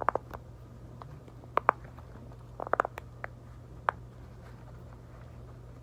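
Silicone Pop It fidget toy being pressed: a scatter of short, soft pops at irregular intervals, a cluster of them near the start and another near the middle, over a steady low hum.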